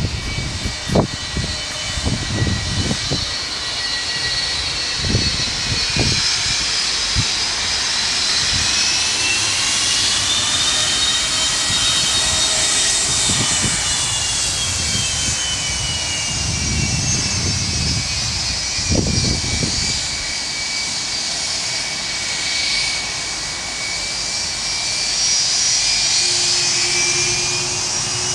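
Boeing 757-200's twin jet engines whining steadily at low power as the airliner rolls slowly along the runway, the whine's pitch sliding slowly up and down. Irregular low rumbling bursts come in the first few seconds and again about two-thirds of the way through.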